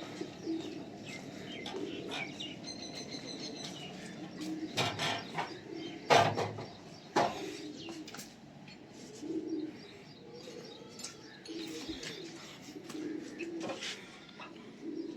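Birds cooing again and again in short low calls, with a few sharp knocks around the middle, the loudest about six seconds in.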